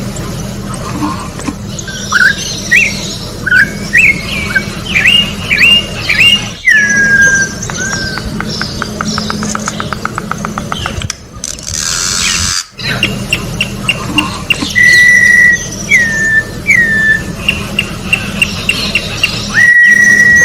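Campo troupial (corrupião) singing: loud, clear whistled notes, many sliding down in pitch, given in repeated phrases, with a fast run of short notes near the middle. A brief harsh noise cuts in about 12 seconds in.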